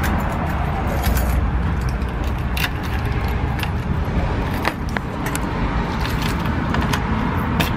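A keyring with a car key fob jangling as a key is fitted into a front-door deadbolt and turned, giving a run of short metallic clicks and scrapes, over a steady low rumble.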